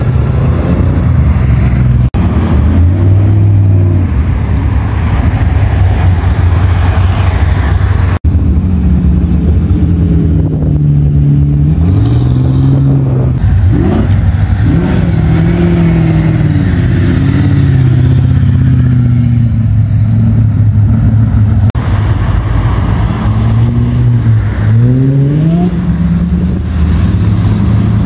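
Car engines idling with several short blips of revs, the pitch rising and falling. The sound is joined from separate clips, with cuts about 2 and 8 seconds in.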